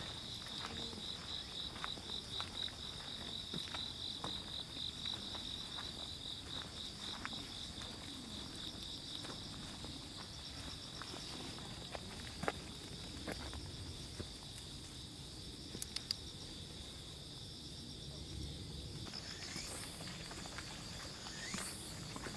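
A steady, high-pitched insect drone that pulses rapidly for the first several seconds and then runs on more evenly, over soft footsteps on grass and gravel. A few short rising calls come near the end.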